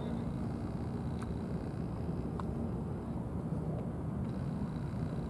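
Steady low outdoor rumble with no clear single source, with two faint ticks about a second apart.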